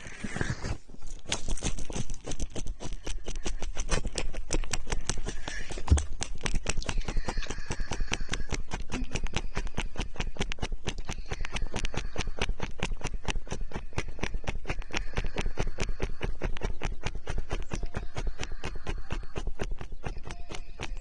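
Rapid, continuous wet clicking and squelching right against the microphone, a close-up ASMR trigger sound.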